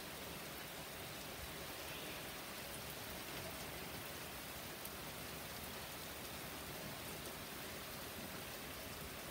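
Hard rain falling on the street and lawn, a steady, even hiss.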